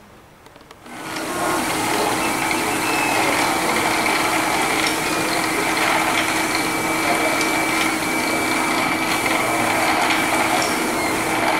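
Dual-extruder FDM 3D printer running, starting about a second in: a steady mechanical whir of its motors and fans with a held high whine and faint ticks as the print head moves.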